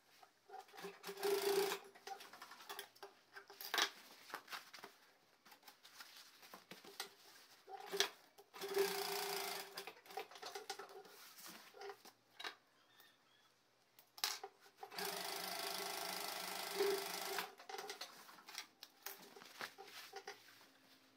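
Industrial single-needle sewing machine stitching denim in three short runs, the last and longest lasting about two and a half seconds, with clicks and fabric handling between the runs as the work is repositioned.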